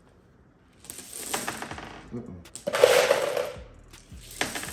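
Handfuls of loose brass cartridges clinking and jingling against each other as they are scooped from a box and dropped into a small cloth pouch, in three bursts: about a second in, near the three-second mark, and just before the end.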